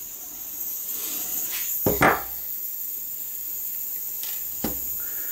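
A solid knock on a wooden workbench about two seconds in and a lighter knock near the end, as a butane soldering iron and tools are set down, over a faint steady high hiss.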